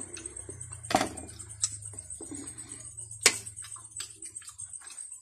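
Close-up eating sounds: crunchy chewing of crispy lechon skin with scattered small clicks, and sharp clinks of a spoon against a ceramic plate, the loudest about a second in and just after three seconds. A low hum runs underneath and stops near the end.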